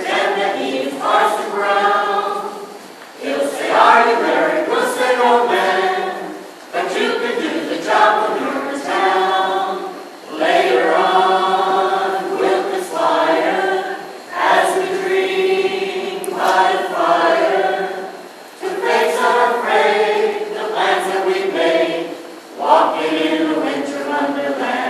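A small mixed choir of carolers, men and women, singing a Christmas carol in harmony. The singing comes in phrases of a few seconds each, with short breaths between them.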